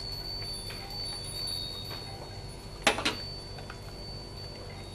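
A single sharp click about three seconds in as a plastic jar of chili paste is handled over the wok, over a faint steady high-pitched tone.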